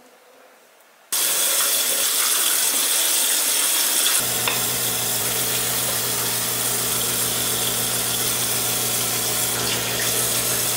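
Running water hissing steadily, starting suddenly about a second in, while cleanser is worked over the face. About four seconds in a low steady hum joins it.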